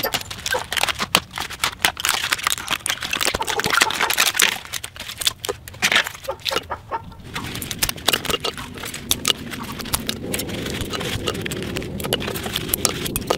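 Hard plastic battery casing and 18650 lithium-ion cells clicking and clattering as a laptop battery pack is pulled apart by hand and the cells are set down on a concrete block. The sound is a dense, irregular run of small knocks and clicks.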